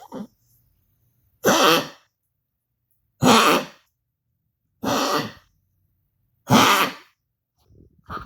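An animal coughing in a series of four loud, harsh coughs about a second and a half apart, with a short cough right at the start and a faint one near the end.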